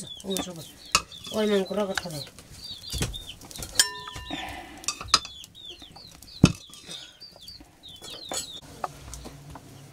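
Chicks peeping over and over in short high chirps, mixed with the clinks and knocks of a metal spoon against pots and dishes at a wood-fire hearth.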